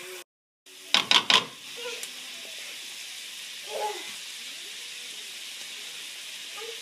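Food sizzling as it fries in hot oil in a skillet, a steady hiss. About a second in there are three sharp clatters in quick succession, louder than the sizzle.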